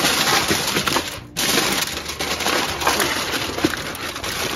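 Aluminium foil crinkling and crackling as a sheet is pulled over a foil pan and pressed down around its rim, with a brief let-up a little after a second in.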